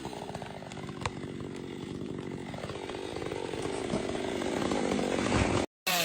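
Chainsaw engine running, its pitch and loudness slowly rising through the second half, then cutting out abruptly for a moment near the end.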